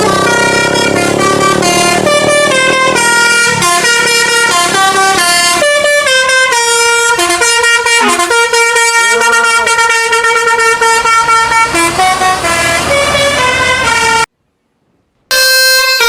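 Bus 'telolet basuri' multi-tone air horn playing a melody, a quick run of stepped notes, over a low rumble in the first few seconds. It cuts off abruptly for about a second near the end, then the horn tune starts again.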